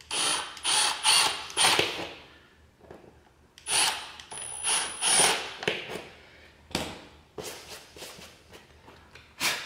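Cordless drill running in short bursts as small holes are drilled into the seam of a laminate floorboard: a group of bursts at the start and another a few seconds later, followed by scattered clicks and knocks of tools being handled on the floor.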